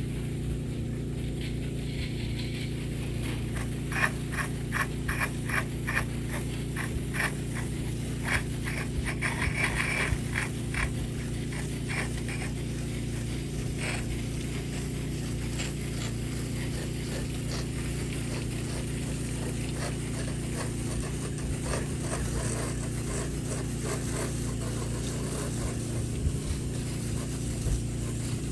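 An engine running steadily, with a run of clicking and scraping from about four seconds in to about fourteen seconds in.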